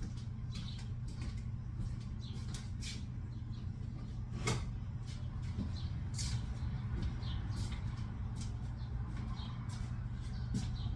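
Scattered light clicks and knocks of kitchen items being handled and moved about, with one sharper knock about four and a half seconds in, over a steady low hum.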